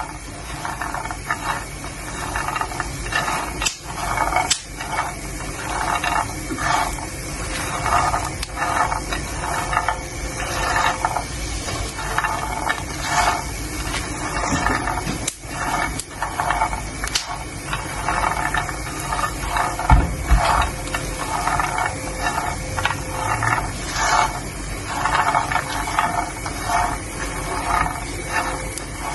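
Peanuts being stirred, rattling in quick repeated strokes one or two times a second, with scattered sharp pops over a steady hiss.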